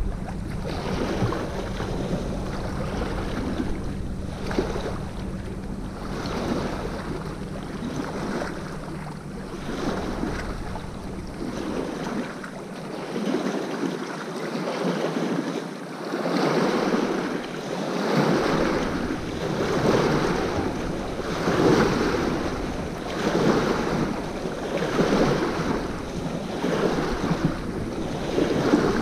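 Small lake waves lapping and splashing against the rocky shore, washing in about every second and a half and growing louder in the second half, with wind buffeting the microphone.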